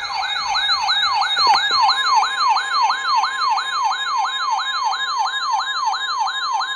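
Electronic siren sounding in fast repeating sweeps, each one rising sharply and then dropping in pitch, about three a second. A steady weather-radio alert tone sits faintly beneath it from about a second and a half in.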